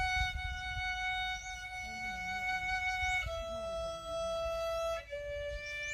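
Violin playing slow, long held notes, stepping down in pitch twice: a note held about three seconds, then a lower one, then a lower one again.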